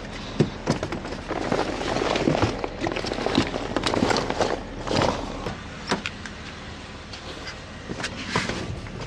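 Irregular knocks, clunks and rustling of dive gear bags and tanks being loaded into a car's open trunk, with a few sharper thumps, over a faint steady low hum.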